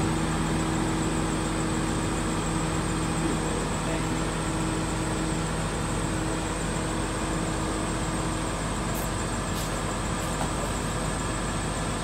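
A crane's engine running steadily: a constant low hum over an even mechanical rumble.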